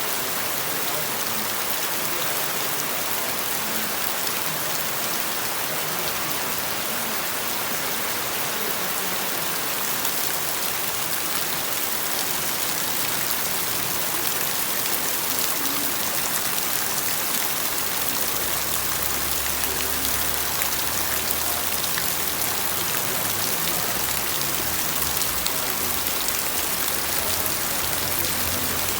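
Steady heavy rainfall: an even hiss of rain with a dense patter of individual drops hitting a surface, unchanging in level. A faint low hum comes in about two-thirds of the way through.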